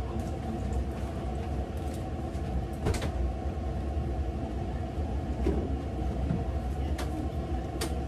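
Pots and dishes being washed by hand in a kitchen sink: a steady low rumble with a few sharp knocks, about three seconds in and twice near the end.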